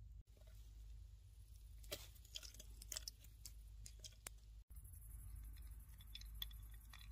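Faint, scattered clicks and light rustles from handling a Spanish-reed needle container, its braided cord and shell beads, over a low steady hum.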